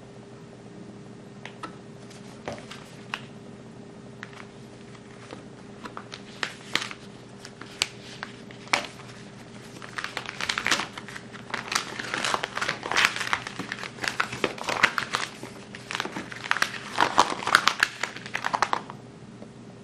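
Paper instruction leaflet being handled and unfolded, crinkling and rustling. A few scattered rustles at first, then busier, louder crinkling in the second half that stops just before the end.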